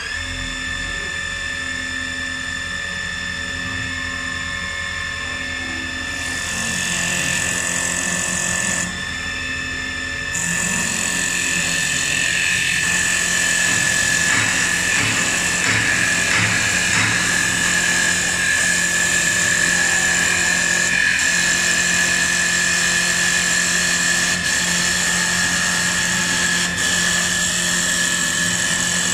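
CNC wood turning lathe running at speed with a steady high whine, turning a wooden blank; it steps louder about six seconds in, and rough cutting noise from the tool shaving the wood joins about ten seconds in.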